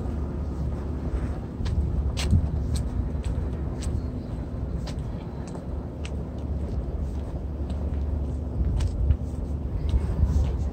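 Roadside outdoor ambience: a steady low rumble of road traffic, with scattered sharp clicks over it.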